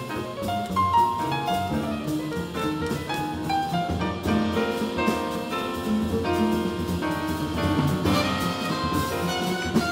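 Live modern jazz from a quartet: piano, plucked double bass and drum kit play together, and a trumpet comes in near the end.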